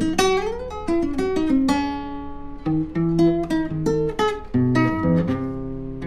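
Acoustic guitar playing a passage of plucked notes and chords, each ringing and fading, with a short upward slide just after the start and a longer ringing chord about two seconds in.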